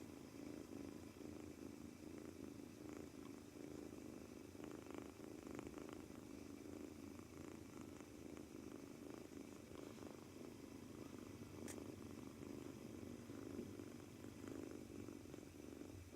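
Two-month-old British Shorthair kitten purring steadily and continuously, a soft low rumble. The owner suspects it keeps purring out of nervousness on its first day home.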